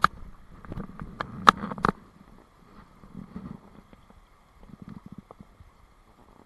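Close knocks and clatter from fishing gear, about five sharp ones in the first two seconds, then softer low splashes and thuds as a trout is brought into a landing net, over the steady rush of a stony stream.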